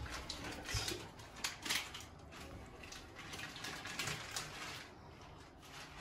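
Faint kitchen handling noise as pasta is plated and cheese is sprinkled: a few brief scrapes and rustles, the clearest about a second and a half in and again past the four-second mark.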